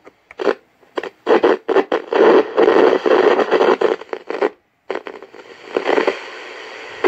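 Sound from a 1984 Sanyo clock radio's speaker crackling and cutting in and out in uneven bursts as its volume slider is moved, dropping out completely for a moment about two-thirds in. It is the sign of a dirty volume control, which the owner says needs cleaning.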